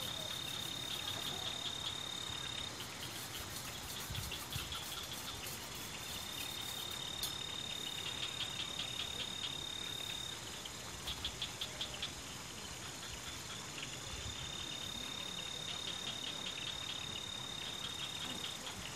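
Night insects calling: a steady high-pitched trill that runs for a few seconds, stops and comes back twice, with shorter pulsed chirps in the gaps, over a steady background hiss.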